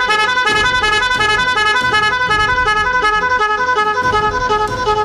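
Indonesian 'telolet' multi-tone bus air horn playing a fast, repeating tune of alternating notes.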